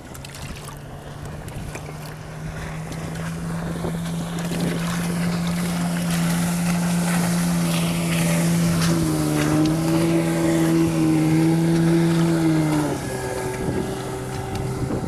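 6 hp Johnson outboard motor on an inflatable boat running at speed as it passes by: the engine note grows louder, then drops in pitch and level as the boat heads away, over wind and water noise.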